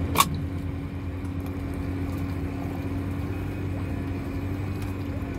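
Boat engine running steadily at idle, a constant low hum, with one sharp click shortly after the start.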